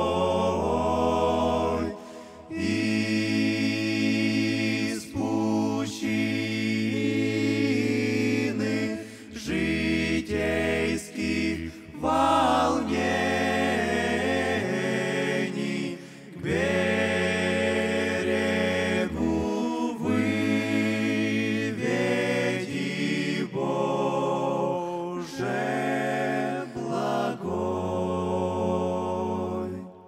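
Men's vocal group singing a Russian hymn a cappella in several-part harmony, a low bass part holding long notes under the melody. The singing stops right at the end.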